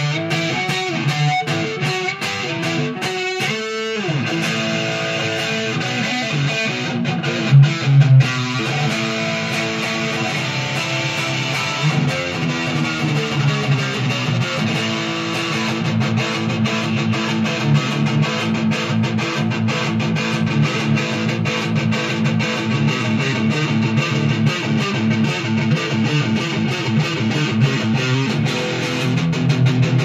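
Junior by K-Van L200 electric guitar played through a distorted amp tone, with sustained rock chords and lead lines and a fast picked run about four seconds in.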